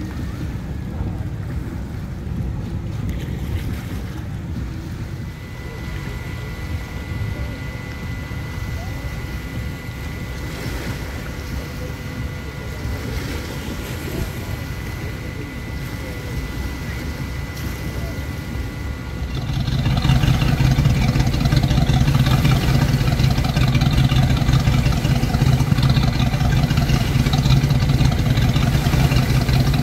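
Motorboat engines idling, with a faint steady whine above the low rumble; about twenty seconds in, an engine becomes much louder and holds a steady low hum.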